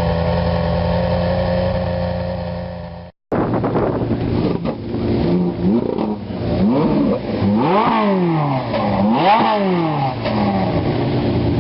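Sports car engine running at a steady note, then, after a sudden cut about three seconds in, a car engine revved over and over, its pitch climbing and falling with each blip of the throttle.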